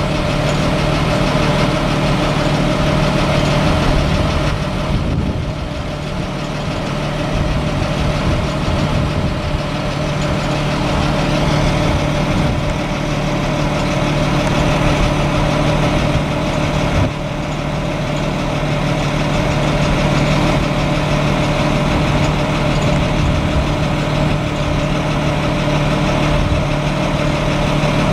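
Caterpillar 7.2L inline-six diesel of a service truck running steadily at idle, a constant low hum, while its hydraulic crane boom is extended.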